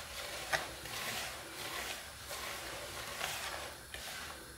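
A hand rubbing dampened coarse semolina around a wooden dish in circular strokes: a soft gritty rustle that swells and fades with each sweep, with a small click about half a second in. The moistened grains are just beginning to clump together.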